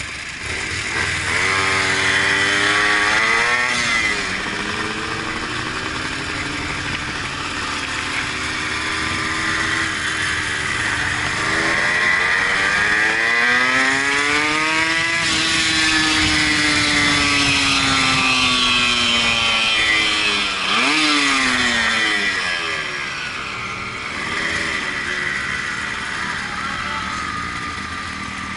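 Motorcycle engine accelerating through the gears. Its pitch climbs and drops back with gear changes, climbs again around the middle, then winds down as the bike slows, with a quick rev a little later. Wind rushes over the onboard microphone.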